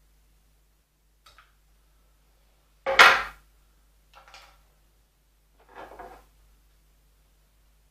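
Metal bonsai hand tools such as pliers clattering as they are set down and picked up: one loud clatter about three seconds in, and a few softer knocks before and after it.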